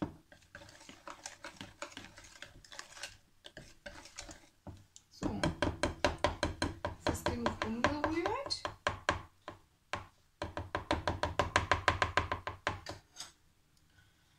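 Wire whisk beating thick pancake batter in a plastic bowl: soft stirring strokes at first, then two fast bouts of rapid beats, about eight a second.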